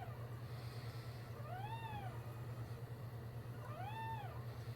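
A newborn puppy crying in short, high mewing squeals. Each one rises and falls in pitch, coming about every two seconds. A steady low hum runs underneath.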